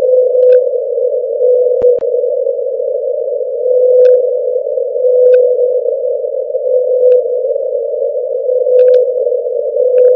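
Hydrophone recording of the '52-hertz whale', a lone whale calling far higher than other blue whales, played back sped up so the call is a steady, high-pitched hum. A brighter note swells in it about every second and a half, with a few faint clicks.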